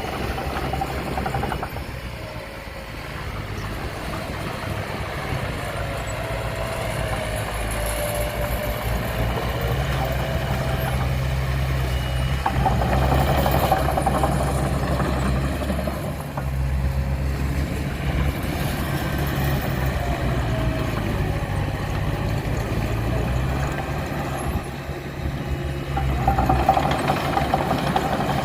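Heavy diesel engine of earthmoving machinery running steadily, its level rising and falling a little as the load changes.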